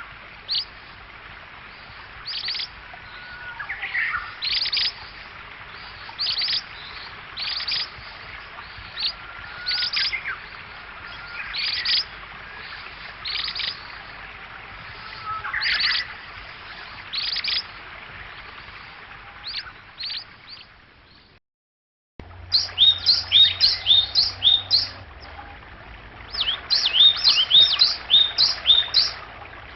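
Wild songbirds calling: short sharp chirps repeated every second or two, then after a brief break a different recording of fast chirping phrases, twice.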